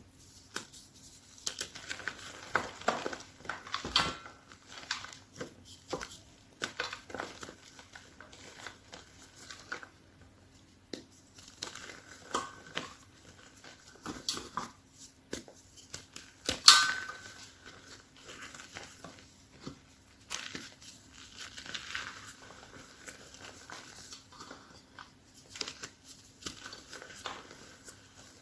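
A block of pressed chalk crushed by hand: irregular crumbling crackles and snaps with short recurring squeaks, and one sharp, loud crack about two thirds of the way through.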